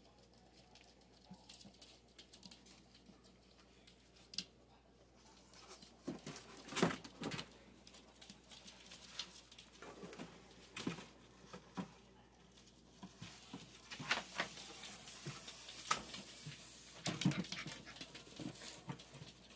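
Puppies scuffling in play: scattered light pattering, rustling and small knocks.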